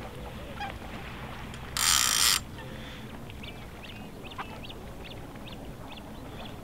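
Water birds calling out on the reservoir: a run of short chirping calls from about three seconds in. About two seconds in there is a brief hissing rush, the loudest sound.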